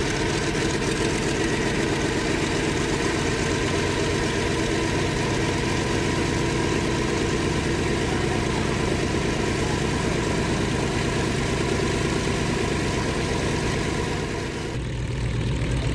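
Vought Corsair's Pratt & Whitney R-2800 radial engine running steadily on the ground, turning the propeller at low power. Near the end it gives way to a deeper engine sound from another aircraft.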